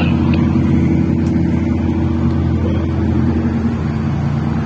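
A boat's inboard engine running steadily under way, a deep even drone.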